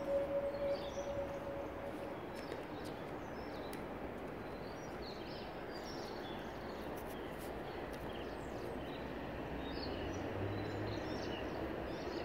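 Steady outdoor background noise with scattered short bird chirps. A steady tone fades out about two seconds in, and a low rumble builds near the end.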